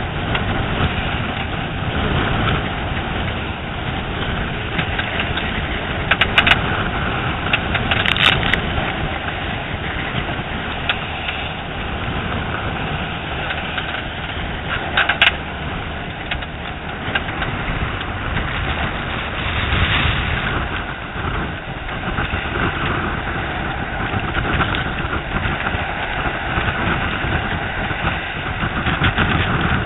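Strong wind buffeting the microphone over the rush of waves along a sailboat's hull in rough, whitecapped seas, with a few sharp knocks.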